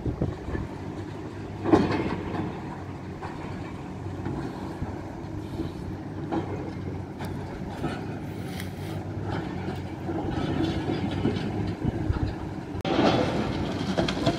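Heavy demolition machinery running steadily, with crunching and clanking of debris; the loudest crunches come about two seconds in and again near the end.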